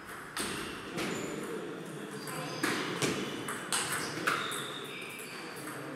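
Table tennis rally: the celluloid ball clicking sharply off bats and table, a hit every half second to a second, with the loudest hits in the middle of the rally.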